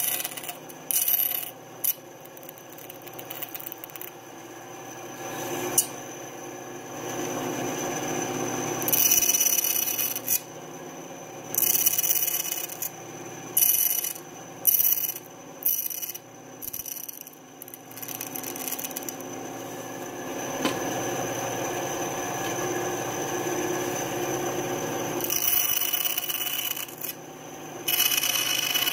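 Small benchtop bandsaw running steadily while its blade cuts thin lite plywood wing ribs. Short, loud bursts of cutting noise come as the piece is fed into the blade, clustered about a third of the way in and again near the end.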